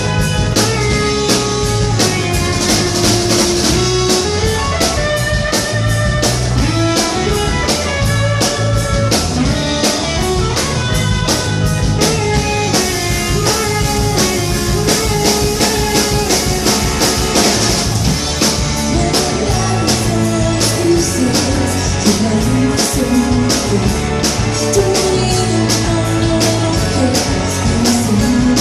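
Band music: guitar over a steady drum beat, in a blues-rock style.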